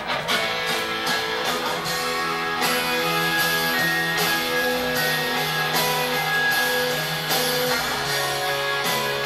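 Guitar strumming chords, starting suddenly: the instrumental intro of the song.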